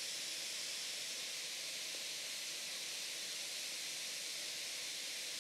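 Lenovo Legion 5 laptop's cooling fans running at full speed, a steady airy rush. Fans racing at full speed on boot are the symptom of this board's fault, which the repairer suspects is a faulty chipset or CPU.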